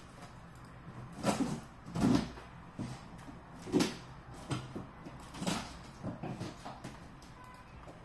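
Cardboard box being cut open with a knife: the blade scrapes through the packing tape and cardboard in about seven short strokes and knocks, roughly one a second.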